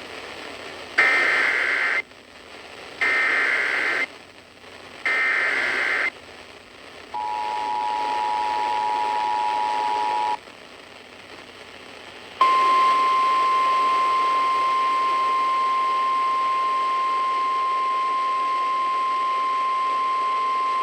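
Emergency Alert System activation heard over radio, announcing a severe thunderstorm warning. First come three one-second bursts of screechy SAME digital header data, then the two-tone EAS attention signal for about three seconds. After a short pause comes the steady single-tone National Weather Service warning alarm for about nine seconds, all over a light radio hiss.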